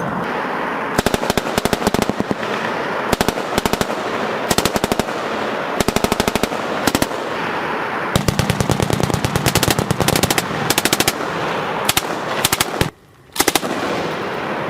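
Machine guns firing in short and longer bursts, about a dozen bursts of rapid shots in all, over a steady rushing background. Near the end the sound drops out for about half a second, then one more short burst follows.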